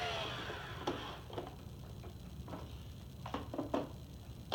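Plastic clicks and knocks from a Robosapien V2 toy robot being handled and stood upright: a brief scraping sound at the start, then a few sharp ticks at irregular intervals.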